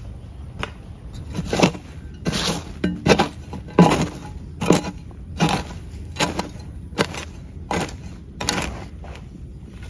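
A hand tool striking repeatedly in a steady chopping rhythm: about ten sharp blows, a little more than one a second.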